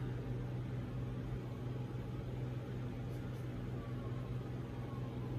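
Steady low hum with a faint even hiss underneath: room tone with nothing else happening.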